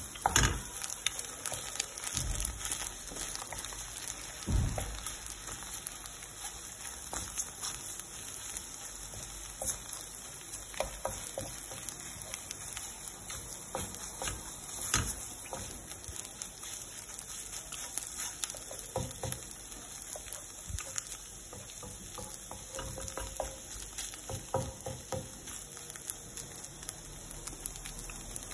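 Eggs sizzling in a nonstick frying pan while a wooden spatula scrapes and chops them up, with frequent light clicks of the spatula on the pan. There are a few heavier knocks in the first five seconds.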